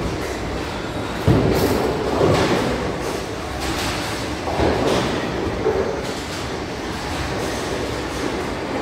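Bowling alley din: the steady rumble of bowling balls rolling down the lanes, broken by sudden knocks and crashes, the loudest about a second in and others near two and five seconds.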